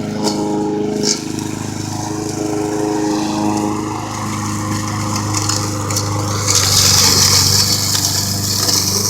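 Toro walk-behind push mower with a Honda engine running steadily while cutting high grass, its engine note shifting under load about a second in. A loud hiss joins about six and a half seconds in.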